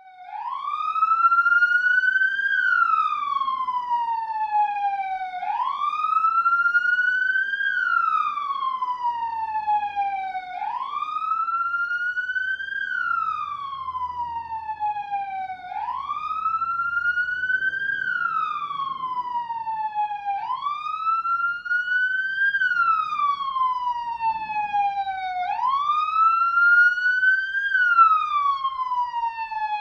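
Police car siren sounding a wail: its pitch climbs for about two and a half seconds, then falls back for about as long, over and over in an even cycle about every five seconds. Faint wind underneath.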